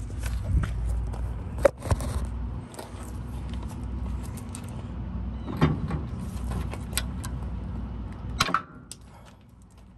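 Metal clinks and jangles from a pair of long-handled cutters being carried and handled, a handful of sharp clicks spread through, over a low steady rumble that falls away about eight and a half seconds in.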